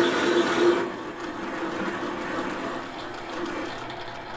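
Metal lathe cutting a cooling-fin groove into an engine cylinder with a grooving tool: a steady running and cutting sound with a steady hum in it. About a second in it drops to a quieter level and carries on.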